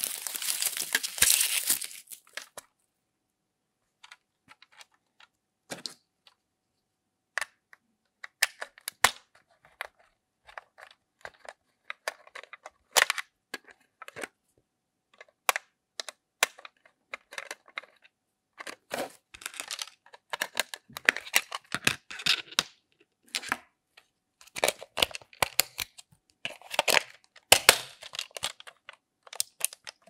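White foam mesh sleeve rustling as it is pulled off a plastic toy appliance for the first couple of seconds, then scattered clicks and taps of the hard plastic toy being handled and a small screwdriver working a screw in its battery cover.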